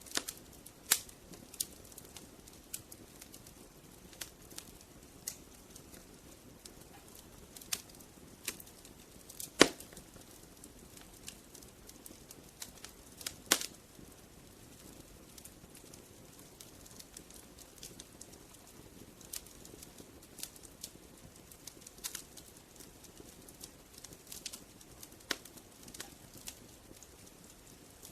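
Wood fire crackling: irregular sharp pops and snaps over a faint low hiss of burning, with two louder pops about ten and fourteen seconds in.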